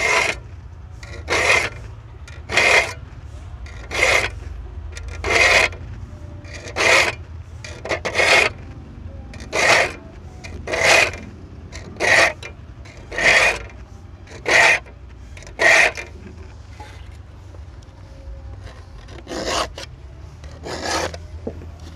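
Saw file rasping across the teeth of a hand saw, sharpening them: about thirteen even strokes a little over a second apart, a pause of a few seconds, then two more strokes near the end. Each stroke files two teeth at once.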